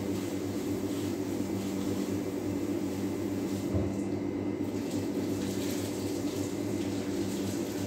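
Kitchen tap water running into a sink as a pot is washed by hand, over a steady machine hum. The water sound drops away briefly about four seconds in, with a low knock at about the same moment.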